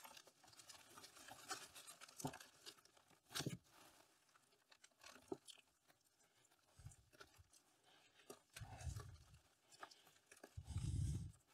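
Potting soil crumbling and rustling as a plant's root ball is slid out of a plastic pot and pulled apart by hand, with scattered light taps and scrapes. Two dull low thumps come near the end.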